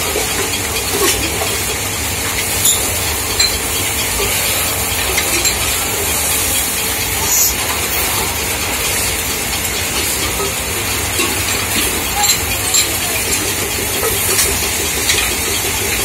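Metal-spinning lathe running while an aluminium pot is spun over its former with a hand-held spinning bar: a steady hiss over a low hum, with scattered small clicks and knocks.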